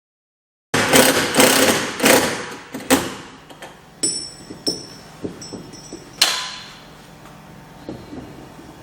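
Bicycle bell rung by the unpowered fishing-line fire detector's spinning wheel: a rapid metallic clattering ring for about two seconds, then several single strikes with a high lingering ring, the loudest about six seconds in. It is the detector's alarm going off.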